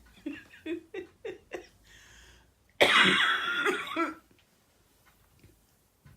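A person's loud cough close to the microphone, about three seconds in and lasting just over a second, after a few short soft sounds.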